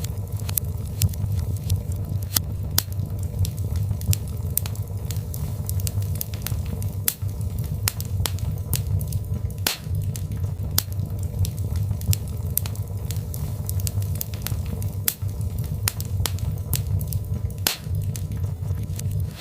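Birch log fire crackling in a fireplace: frequent, irregular sharp pops and snaps over a steady low rumble of the flames.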